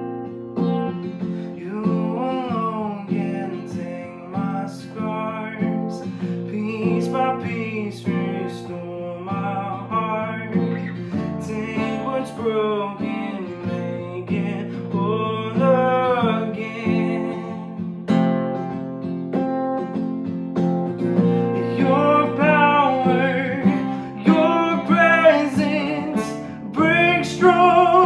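A man singing a slow worship song, accompanying himself on a strummed acoustic guitar; the guitar chords run throughout and the voice joins about two seconds in.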